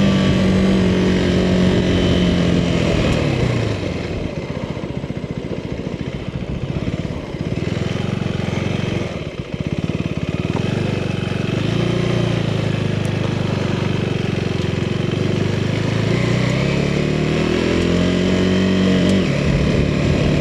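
Motorcycle engine on the move. Its pitch falls about three seconds in and it runs low for several seconds, then it climbs as the throttle opens, briefly around the middle and again for a longer pull near the end, dropping just before the end.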